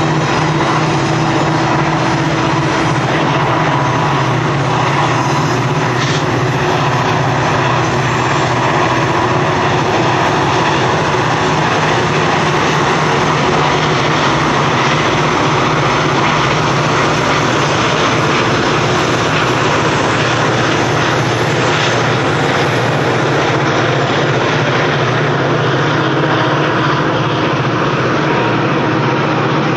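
Diesel engines of BNSF EMD SD40-2 freight locomotives running in a loud, steady drone as the train rolls past, with the rumble of the train on the rails mixed in.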